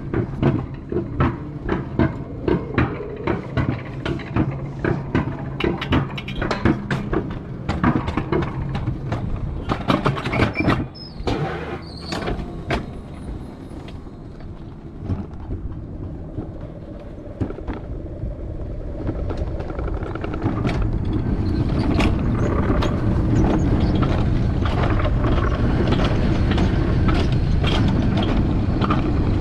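Alpine coaster sled on its rail track: a run of regular clicks and clacks at about two a second that thin out near the middle, then from about two-thirds in a steady, louder rumble of the wheels rolling along the rails as the sled picks up speed.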